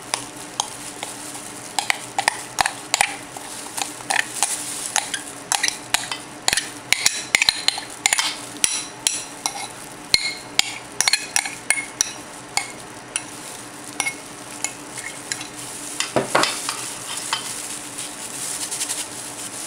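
Metal spoon scraping thick chili seasoning paste out of a bowl and onto cubed radish, in irregular scrapes and taps with a few short ringing clinks against the bowl.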